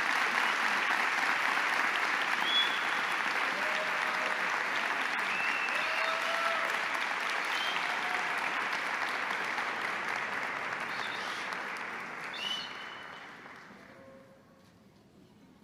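Large crowd applauding steadily, with a few brief voices calling out over it; the applause dies away near the end.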